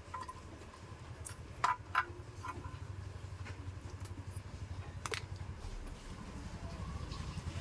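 A few sharp clicks and taps, two close together about two seconds in and another near the middle, as parts of a table fan are handled during repair, over a low fluttering rumble.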